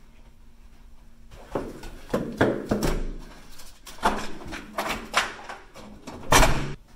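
A hotel room door being handled: a run of clicks, knocks and thumps from the door and its latch, starting about a second in, with the loudest thump near the end.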